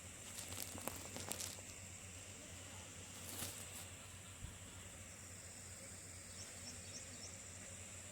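Quiet outdoor ambience with a steady high hiss. A few brief rustling clicks come in the first second and a half and again about three and a half seconds in. Four short high chirps in quick succession sound near the end.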